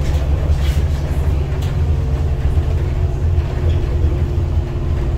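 Irisbus Citelis 12 city bus with its Iveco Cursor 8 straight-six diesel running under way, a steady low drone heard from inside the passenger cabin, with a couple of faint clicks early on.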